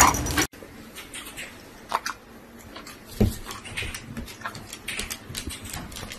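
Husky puppy and another dog play-wrestling on a tile floor: soft scuffling and faint dog sounds, with a thump about three seconds in. A louder outdoor sound cuts off abruptly about half a second in.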